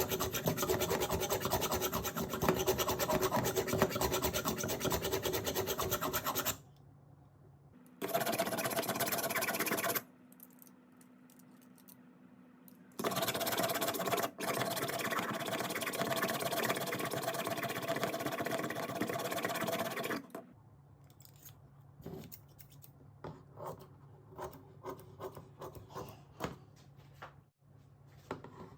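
Sewing scissors being sharpened: a dense rasping rub against an abrasive, in three stretches. Lighter scattered ticks follow in the last third.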